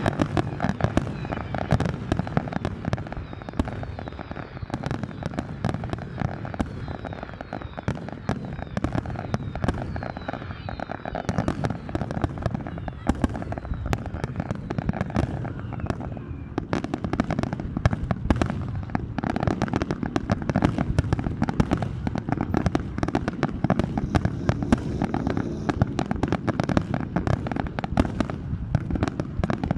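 Large fireworks display: a dense, continuous barrage of bangs and crackling shell bursts, with faint whistling glides in the first half.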